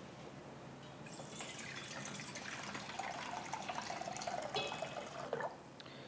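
Water being poured into a vessel: a faint pouring sound that starts about a second in and stops near the end.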